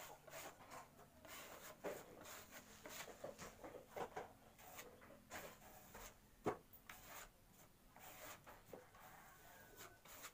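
Faint rubbing and scuffing of a rag wiping wood finish onto a plywood panel, with irregular soft ticks and one sharper knock about six and a half seconds in.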